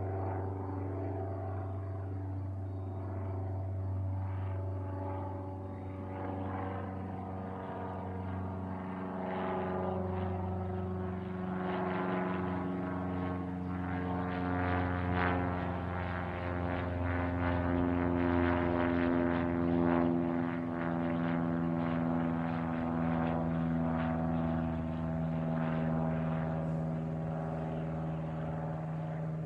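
Cessna 172 Skyhawk single-engine propeller plane flying overhead, its engine and propeller drone growing louder toward the middle of the pass and easing off near the end. The pitch slowly falls as it goes over.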